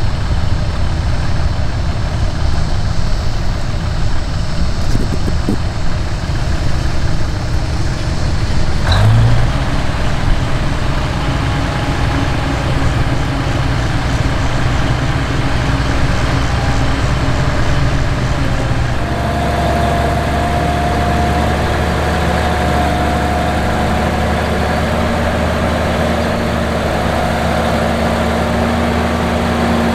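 Versatile 956 articulated four-wheel-drive tractor's diesel engine running steadily under load while pulling an earthmoving scraper. Its note shifts about a third of the way in and changes again about two-thirds through as the tractor comes closer.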